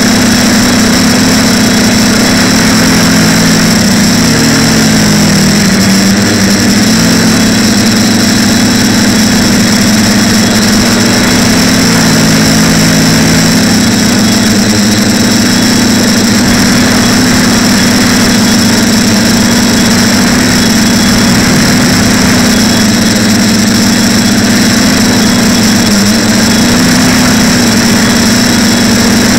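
TBS Discovery quadcopter's brushless motors and propellers humming loudly and steadily in flight, the pitch dipping and climbing back with the throttle a couple of times. A steady high whine sits over the hum.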